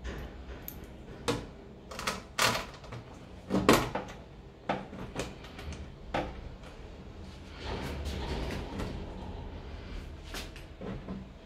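Scattered sharp knocks and taps as a licence plate and a tool are handled against a Jeep Renegade's tailgate, about half a dozen in all, with a couple of seconds of rubbing noise about eight seconds in.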